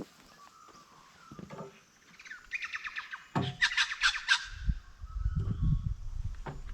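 A bird calling: a rapid run of short, high chirps for about two seconds. A low rumbling noise follows in the second half.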